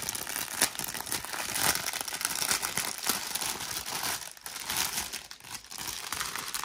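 Clear plastic packaging crinkling steadily with many sharp crackles as a bag of diamond-painting drill packets is handled and unwrapped.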